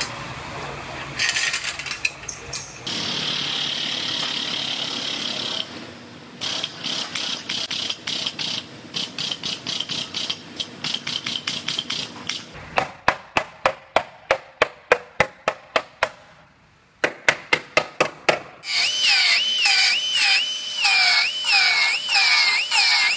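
A run of sharp, evenly spaced clicks, about three a second, with a short pause. Then, about nineteen seconds in, a cut-off wheel cuts into the car's steel upper rail, its whine dipping in pitch about twice a second as it bites.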